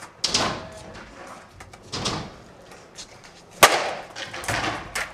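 Skateboards rolling and clattering on wooden ramps, in several noisy swells, with one sharp board slap about three and a half seconds in, the loudest sound.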